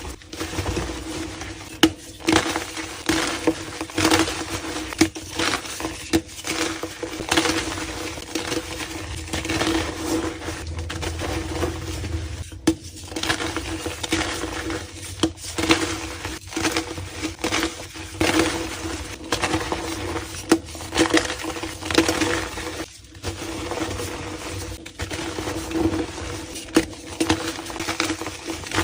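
Blocks of reformed gym chalk being crumbled and crushed by hand: a dense, irregular run of crisp crunches and crackles as the chalk breaks apart.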